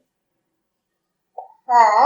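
Silence, then near the end a child says the letter "P" aloud.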